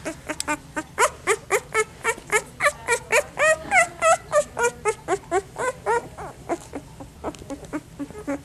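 Young puppies whimpering and squealing: a rapid run of short, high cries, several a second, thinning out in the last couple of seconds.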